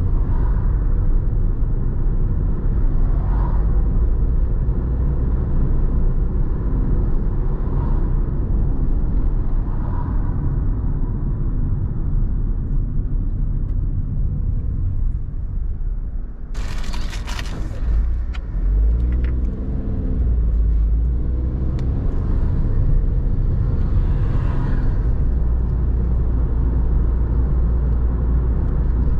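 Car driving along a road, heard from inside the vehicle: a steady rumble of engine and tyres. A brief hiss comes a little past halfway, then the engine note rises as the car picks up speed.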